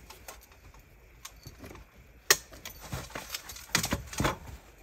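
Handling sounds as a dog is lifted down out of a rooftop tent: rustling tent fabric and scattered light clinks, a sharp knock a little past two seconds in, then a cluster of louder rustles and knocks near the end.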